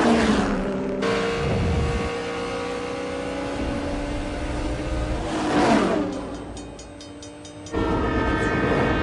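High-revving race car engines at speed, with whooshing pass-bys at the start and about five and a half seconds in. About three quarters of the way through, a loud train horn sounds suddenly and holds as a train closes in.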